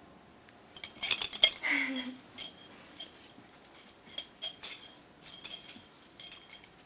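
Metal ID tags on a Shiba Inu's collar clanking and jingling in irregular bursts as the dog jumps and shakes her head tugging a rope toy. They are loudest about a second in.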